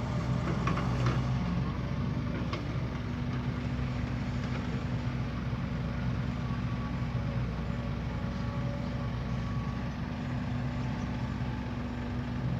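Diesel engine of heavy earthmoving machinery running steadily, with a few faint knocks.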